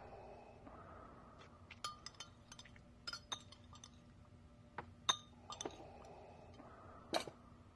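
Light clinks of cutlery against dishes and glasses at a dinner table: a dozen or so short, quiet, irregular clinks, each with a brief ring.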